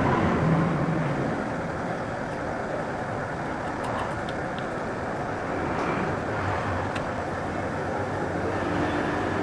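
Steady background noise with a few faint clicks.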